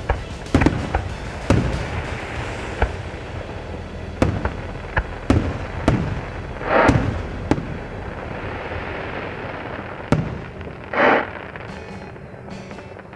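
Aerial fireworks shells bursting, about a dozen sharp bangs in irregular succession, each trailing off in an echo, with two longer rushing bursts and fewer bangs near the end.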